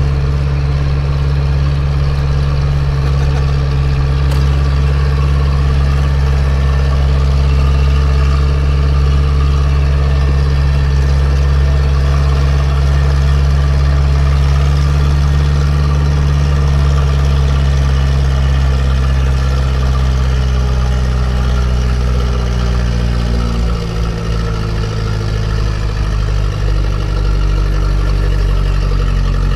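Zetor 7045 tractor's four-cylinder diesel engine running steadily while driving, heard from inside the cab. About three-quarters of the way through, the revs drop a little.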